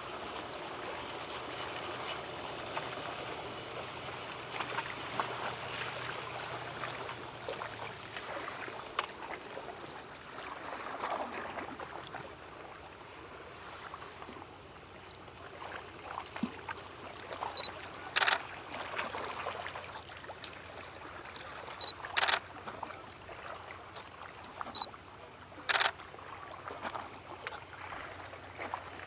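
Camera shutter released three times, each shot preceded by a short high focus-confirmation beep. The shots fall over the second half, about four seconds apart, against steady outdoor background noise. A faint low hum fades out in the first several seconds.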